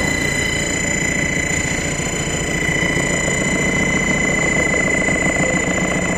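Automatic resistance seam welding machine running, its water-cooled copper wheel electrode rolling along a straight seam: a steady machine drone with a constant high-pitched whine.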